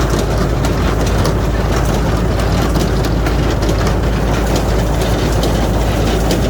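Hay baler running steadily, a continuous low engine drone with a constant mechanical rattle.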